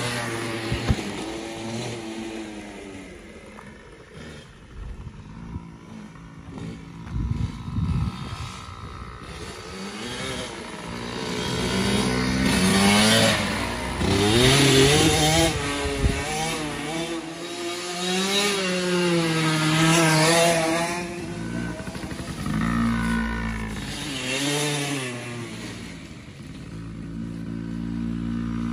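Husqvarna 65cc two-stroke kids' dirt bike engine revving up and down as it is ridden, its pitch rising and falling with throttle and gear changes. It is loudest in the middle as the bike passes close, and fainter at the start and end.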